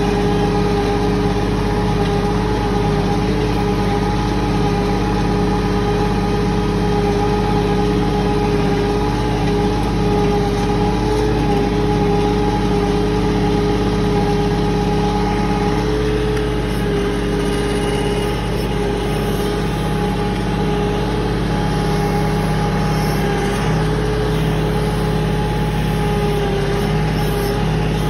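Bobcat CT4045 compact tractor's diesel engine running steadily while the backhoe is worked.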